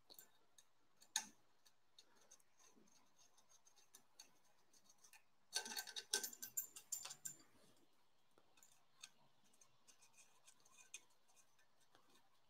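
Near silence broken by faint scattered clicks and light ticks of screws being worked out of a 3D printer's cable guides, with a short run of quick clicks about halfway through.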